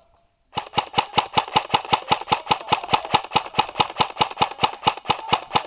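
Airsoft rifle firing a long burst on full auto: a rapid, even string of sharp clicks, about nine shots a second, over a steady motor-like hum. It starts about half a second in and stops just before the end.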